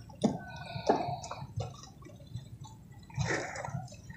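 Lake water making small drips and light splashes, with a few sharp ticks in the first second and a half and a short swell of water noise about three seconds in.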